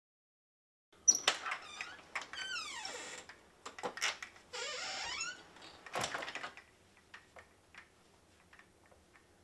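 A house door being unlatched and swung open on squeaky hinges, giving two long creaks that fall in pitch, then shut with a sharp click of the latch about six seconds in. A few light ticks follow.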